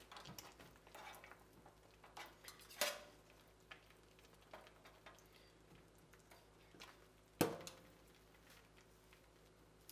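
Metal spoon clinking against a stainless steel pan in a hot dye bath: scattered light knocks, with two sharper clinks about three and seven seconds in, the second the loudest.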